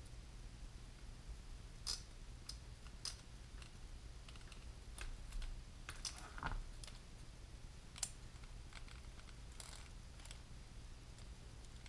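Irregular small clicks and taps of a small screwdriver and plastic and metal parts on a micro RC helicopter's rotor head as a screw is driven back in, over a faint low steady hum.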